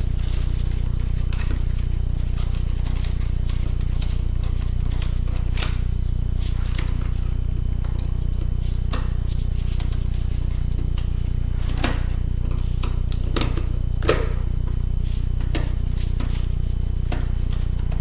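Scattered small clicks and taps of tools and metal and plastic parts being handled while a 2006 MacBook laptop is taken apart, over a steady low electrical hum.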